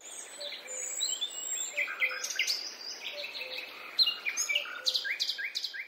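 Several songbirds chirping and singing, many quick calls and short trills overlapping, over a faint steady outdoor hiss.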